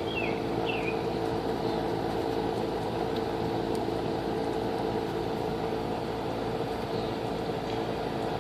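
Comfortmaker package air-conditioning unit running in cooling mode, giving a steady hum with several level tones. A couple of short high chirps sound about a second in.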